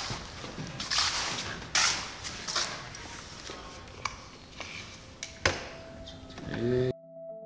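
Handling noises at a wooden stair railing: a string of brushing scrapes and light knocks, with a sharp knock about five and a half seconds in. A short rising sweep near the end leads into soft keyboard music.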